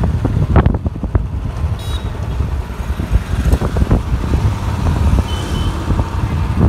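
Wind buffeting the microphone over a motorcycle engine running while riding, a rough, gusty low rumble.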